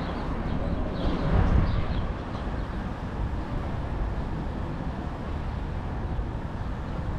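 Steady low rumble of outdoor background noise, swelling briefly about a second in.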